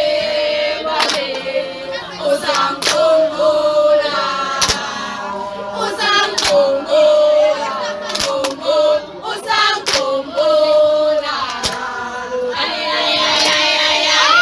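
A group of children and teenagers singing a song together with hand claps, the held sung notes punctuated by sharp claps at uneven intervals.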